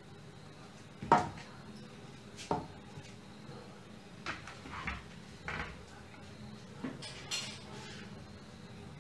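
Wooden spoon knocking and scraping against an aluminium tray and a non-stick pan as thick barfi mixture is scooped and dropped in. There are about eight scattered knocks, and the first, about a second in, is the loudest.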